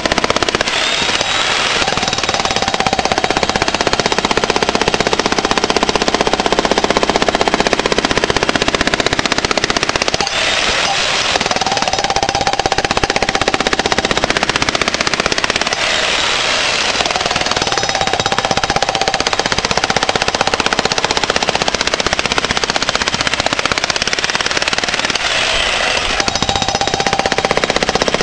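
Electric jackhammer hammering continuously into old concrete: a dense, rapid, loud pounding that never stops, with a faint whine that comes and goes every several seconds.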